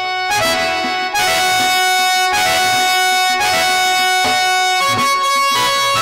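Harmonium playing a folk melody in long held notes, with a few drum strokes.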